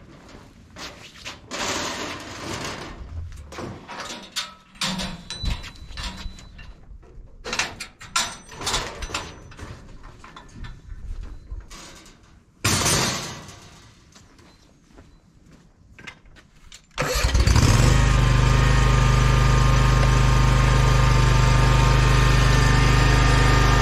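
Metal mesh ramp clanking and rattling as it is unfolded and lowered, with one loud clank about 13 seconds in. About 17 seconds in, the engine of a Wright stand-on mower starts and runs steadily and loudly.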